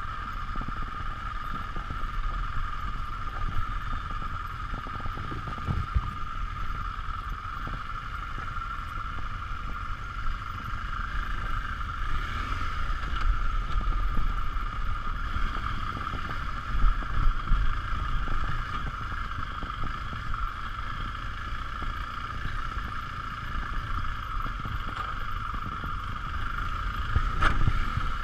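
BMW R 1200 GS LC's liquid-cooled boxer twin running at low speed on a rough trail descent, a low rumble under a steady high hum, with occasional knocks from the bike jolting over the ground, one loud knock near the end.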